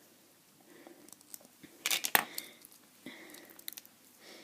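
Small plastic Lego pieces being handled and clicked apart, a scatter of faint clicks with two sharper clicks about two seconds in.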